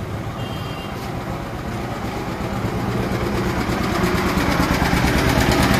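Motorcycle engine running and picking up speed, its note and the road and wind noise growing steadily louder. A short high beep sounds near the start.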